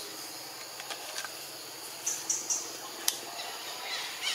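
Forest ambience: a steady high hiss with a run of three short, high chirps about two seconds in, and a few sharp clicks, the loudest about three seconds in.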